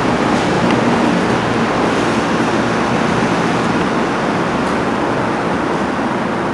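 Steady, loud rushing noise with no distinct knocks, steps or voices in it.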